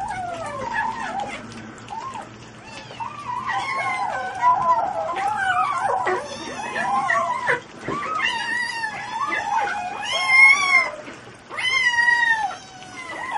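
A litter of young kittens mewing over and over as they eat, many high calls overlapping.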